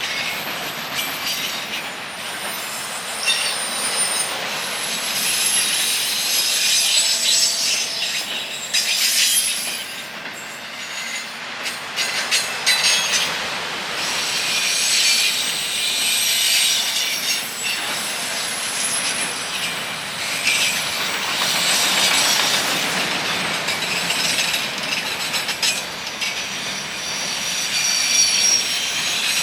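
Train cars rolling past, their wheels squealing against the rails in several high, wavering tones over the steady noise of the wheels.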